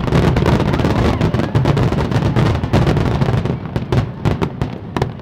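Fireworks display: a dense barrage of bursts merging into a continuous rumble, thinning after about three and a half seconds into separate sharp cracks and crackles.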